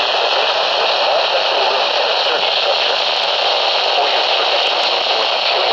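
Radio static: a steady, even hiss from a receiver on a weak or empty signal, with no clear voice coming through.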